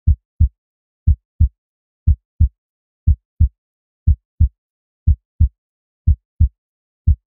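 Heartbeat sound effect: paired deep thumps, lub-dub, repeating steadily about once a second with silence between beats.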